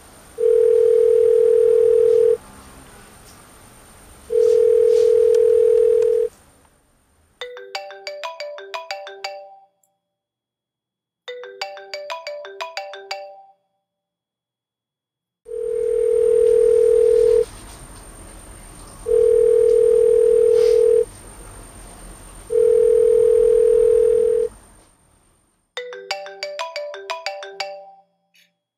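A telephone ringback tone, one steady beep about two seconds long repeating with two-second gaps, twice and later three times, heard through the phone. In between, a mobile phone's melodic ringtone plays in short tinkling phrases, ringing unanswered.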